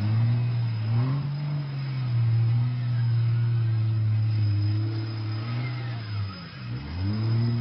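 Jeep Wrangler off-road competition vehicle's engine, kept running at high revs through a 360-degree rollover. Its note holds steady, drops briefly about six and a half seconds in, then rises again near the end.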